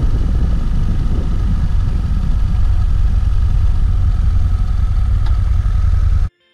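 Motorcycle riding along at a steady pace: engine running under heavy wind rumble on the onboard microphone. The sound cuts off abruptly near the end.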